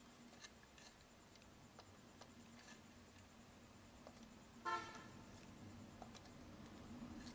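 Near silence with faint scattered ticks, broken about four and a half seconds in by one short horn toot.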